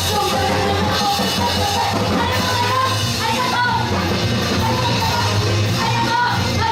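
Loud, steady up-tempo pop-rock music with voices singing and yelling over it, played live in a hall.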